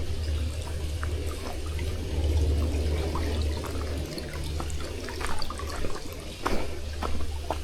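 Small creek waterfall splashing and rushing steadily, with a low rumble under it. A few short clicks and scuffs are scattered through it.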